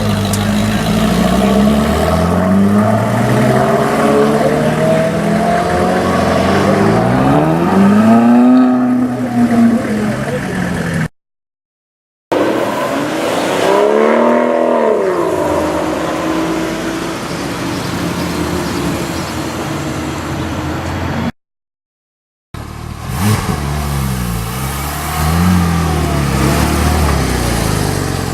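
Car engines revving and accelerating, their pitch climbing and falling, in three separate clips split by two short gaps of silence. The last clip has a few quick revs.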